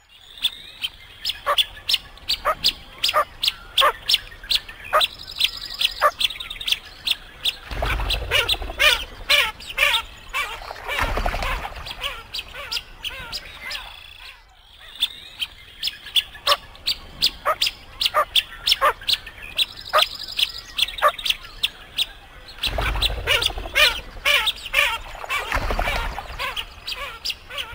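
Birds calling in a quick, dense run of sharp chirps and peeps, with a couple of short low rumbles in between. The same stretch of calls repeats about every fifteen seconds.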